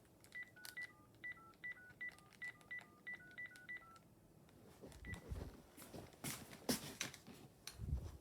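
Home phone handset keypad sending touch-tone beeps as about ten digits are dialled in quick succession, to call a cell phone over the Ooma Telo Air 2 service. After that come irregular clicks and knocks from handling the phone.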